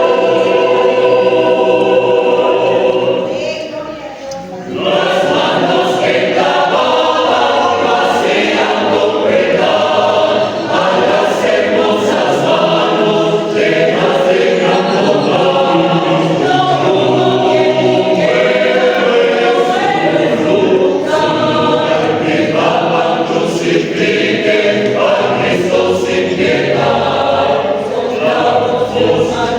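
A choir singing, many voices holding chords together, with a brief quieter moment about four seconds in.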